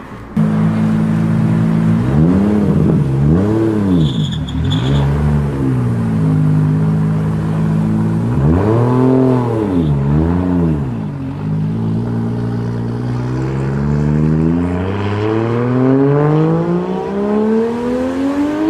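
Toyota Supra MK4's straight-six engine idling and being blipped: two quick revs about two seconds in, two more around nine seconds, then a slow, steady climb in revs over the last several seconds.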